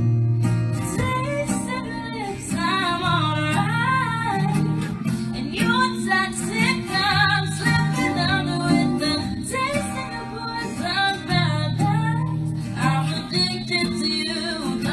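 A woman singing a song into a microphone, backed by guitar, with some held notes wavering in vibrato.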